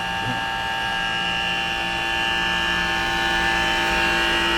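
Trane 3D scroll compressor in a rooftop pool dehumidifier running with a loud, steady, multi-toned hum that slowly grows louder. The noise is a sign of a worn compressor, which the owner believes has something coming loose inside.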